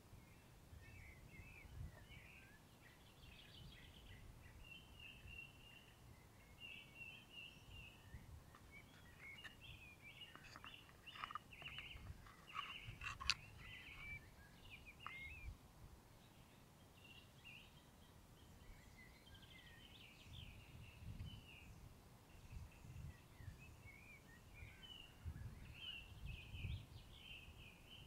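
Faint birdsong: birds chirping throughout, busiest with a run of sharper calls about halfway through, over occasional low rumbles.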